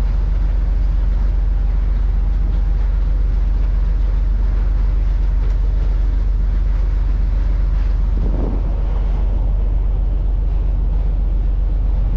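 Steady deep rumble aboard a container ship under way: the ship's engine drone with wind buffeting the microphone.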